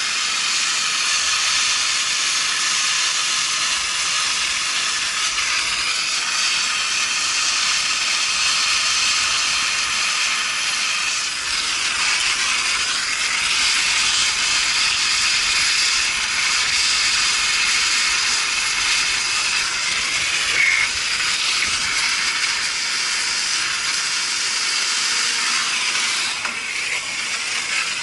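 Handheld MAPP-gas torch burning with a steady hiss while heating a copper pipe joint for soldering.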